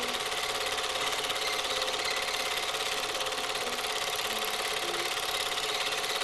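Super 8 film projector running: a steady, fast mechanical clatter from the film transport, with a constant whine under it.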